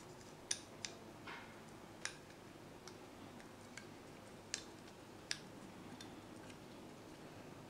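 Sparse, faint clicks and taps of carbon-fibre drone frame arms, plates and small screws being handled and fitted together.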